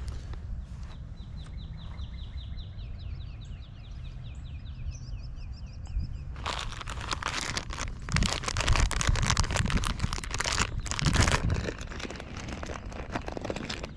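Close rustling and crinkling handling noise starts about six and a half seconds in and is loudest in the middle of the stretch that follows. Earlier a bird trills, a fast run of short repeated chirps.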